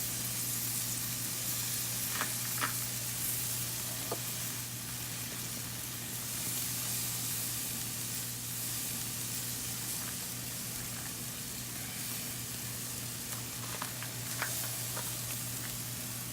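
Sauce-basted ribs sizzling steadily on a hot preheated grill, with a few sharp light clicks now and then.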